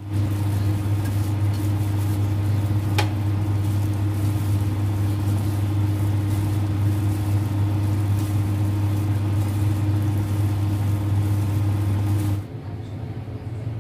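Steady low machine hum with a hiss over it, which stops abruptly about twelve seconds in; one sharp click about three seconds in.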